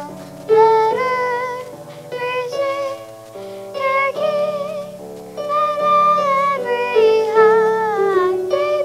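A young girl singing a slow song with instrumental accompaniment, her voice wavering on the held notes.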